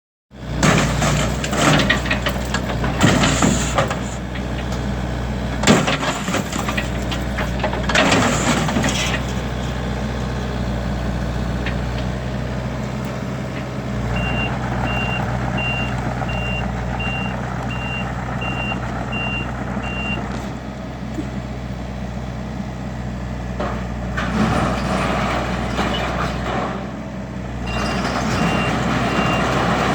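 Heavy diesel demolition machinery running steadily, with a reversing alarm beeping about once a second for several seconds in the middle and again near the end. Loud bangs and crunches of material in the first nine seconds and again shortly before the end.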